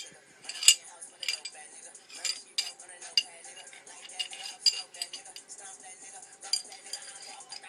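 Steel parts of a 1911 pistol clicking and clinking as they are handled during a field strip and reassembly, taken apart or fitted together and set down on a hard surface. Irregular sharp metallic clicks, about one or two a second.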